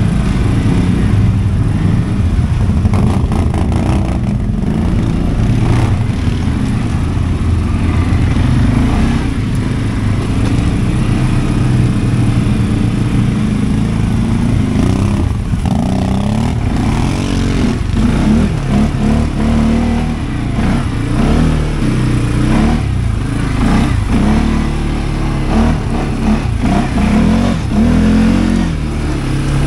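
A CF Moto 520L ATV's single-cylinder engine running under load on a climb, its pitch rising and falling again and again as the throttle is worked on and off, with some knocks and rattles from the machine.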